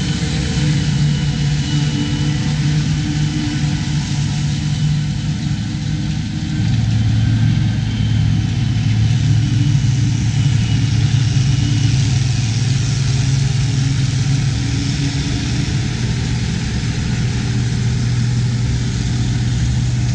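White 195 tractor's diesel engine running steadily as it pulls a Gehl 1260 forage harvester chopping corn silage, with the chopper running behind it. The engine note drops to a lower pitch about six seconds in.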